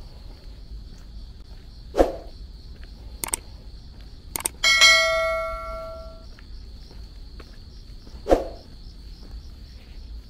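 A metal bell struck once about halfway through, ringing with several overtones and dying away over about a second and a half, just after a few sharp clicks. Two loud sharp knocks fall about six seconds apart, one before the bell and one near the end. Insects chirr steadily at a high pitch throughout.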